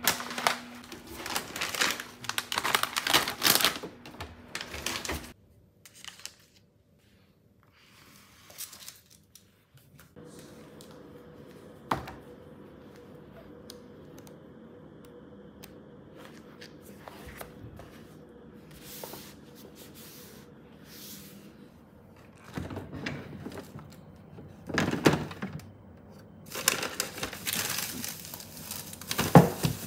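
Household handling noises: rustling and crinkling of packets and paper, a magazine's pages flipping, then plastic-wrapped food rummaged in a refrigerator vegetable drawer. A steady low hum sits under the middle part, with one sharp click.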